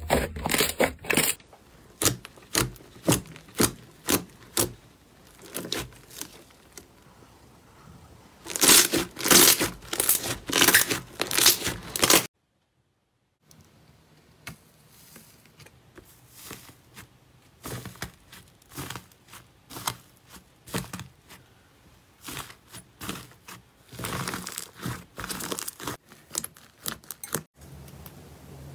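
Slime being pressed, stretched and poked, giving quick trains of sticky crackles and pops; the busiest, loudest run comes about a third of the way in, and the sound drops to dead silence for about a second just after.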